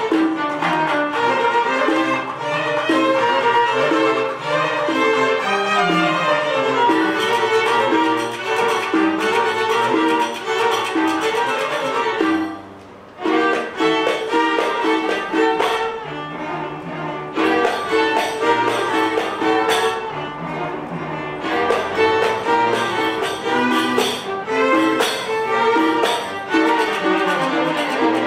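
String quartet of violins and cello playing a bowed piece, with a brief pause near the middle before the playing resumes.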